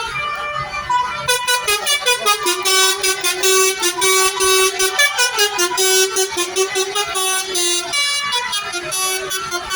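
Indonesian 'telolet' multi-tone bus air horns playing a tune. Held notes at first give way, about a second in, to a fast run of short stepping toots.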